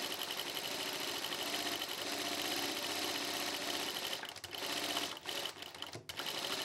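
Juki DDL-900B industrial lockstitch sewing machine stitching steadily, sewing gathers into a single layer of fabric through a gathering foot. About four seconds in it runs stop-start for the rest of the time.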